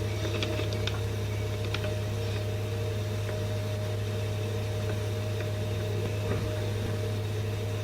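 Steady low hum and hiss of an old recording, with a few faint clicks in the first two seconds.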